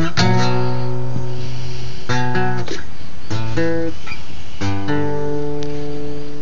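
Acoustic guitar strummed in short groups of chords, with a chord struck about three-quarters of the way through left ringing and slowly fading.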